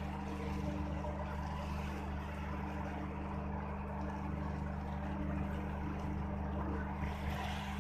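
Ship's engines running with a steady low drone that holds unchanged throughout.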